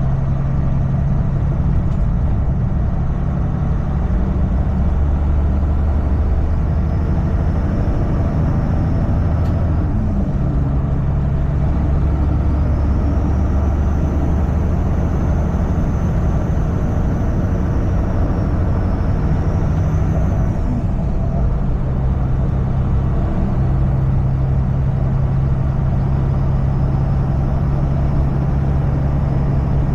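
Semi truck's diesel engine and road noise while driving: a steady low drone whose engine note shifts slightly a couple of times.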